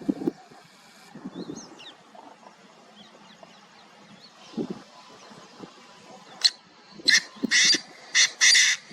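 Painted francolin calling: a loud run of about five harsh notes starting around two and a half seconds before the end. Faint chirps of small birds and a few low thuds come earlier.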